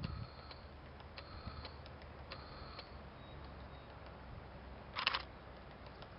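Light, irregular ticks or taps, each with a faint ring, and about five seconds in one short, sharp clack.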